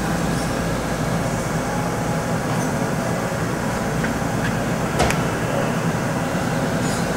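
Steady mechanical hum of a powered-up Hardinge CHNC4 CNC chucker lathe and its control cabinet, with one sharp click about five seconds in.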